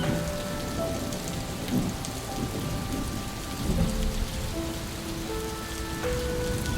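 Steady rain falling, with soft, sustained piano notes played slowly over it and low rumbles of thunder now and then.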